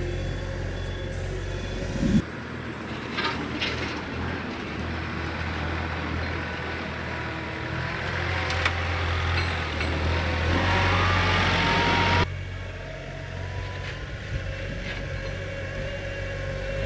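Hitachi ZW40 compact wheel loader's diesel engine running as it pushes snow, a steady low hum. A sharp thump about two seconds in; past the middle the sound grows louder with a rising whine for a few seconds, then drops abruptly back to the steady hum.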